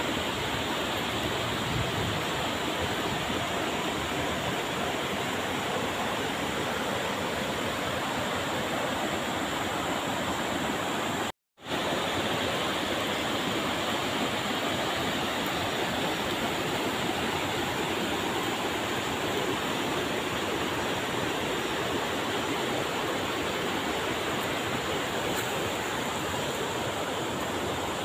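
Steady rushing of a shallow river pouring over rocky rapids. It cuts out to silence for a split second about eleven and a half seconds in.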